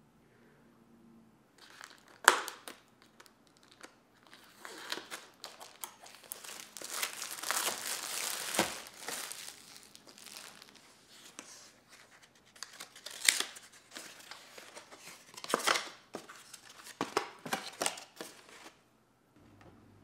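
Plastic shrink wrap being torn and crinkled off a food package, followed by more crinkling and rustling of packaging, with a few sharp cracks of plastic among it.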